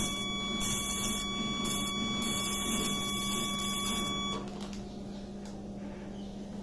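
Eclipse Forcee 400 electrosurgical unit sounding its steady activation tone in desiccation mode, with the hissing sizzle of chicken tissue under the pencil electrode. Both stop together about four seconds in, when the foot switch is released; a low steady hum remains.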